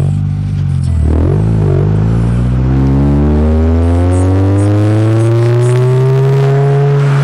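Honda CR-Z Mugen RZ's supercharged 1.5-litre four-cylinder engine pulling hard under acceleration, its pitch climbing steadily for several seconds. Near the end it drops sharply at a gear change.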